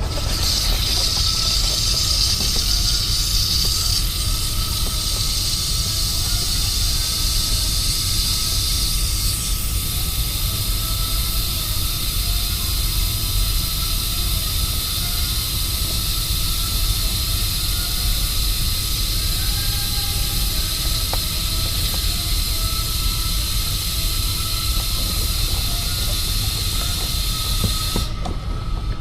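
R22 refrigerant gas hissing steadily out of a hose into an air-conditioner's condensate drain line, blowing it through under pressure to clear the clog. The hiss is strongest over roughly the first ten seconds and cuts off suddenly near the end, over a low steady rumble.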